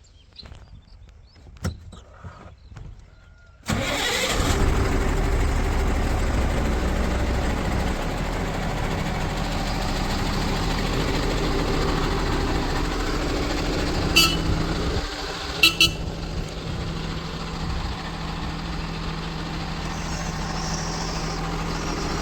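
Heavy diesel engine of a backhoe loader or dump truck that comes in suddenly about four seconds in, then runs steadily. A few short, sharp hisses or clicks sound over it about two-thirds of the way through.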